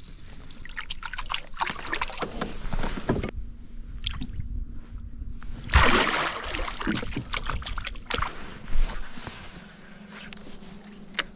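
Water sloshing and splashing beside a small boat, in irregular bursts with a stronger splash about six seconds in, and a few sharp knocks, the loudest near nine seconds.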